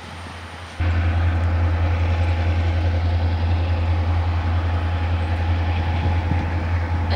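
Diesel-electric freight locomotives hauling a train of coal hoppers, their engines running with a steady low drone. It is fainter at first, then much louder from about a second in.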